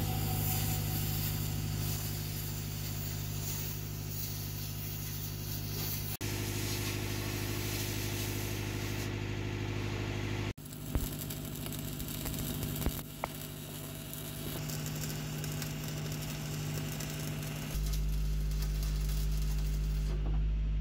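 Oxy-fuel cutting torch hissing as it cuts through steel plate, over a steady low hum, with a few sharp cracks a little past the middle.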